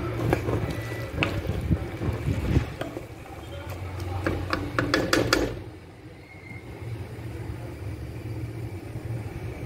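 White beans in tomato sauce frying in an aluminium pot as a wooden spoon stirs them, scraping and knocking against the pot for the first five seconds or so. After that the stirring stops and a quieter, steady frying sizzle is left.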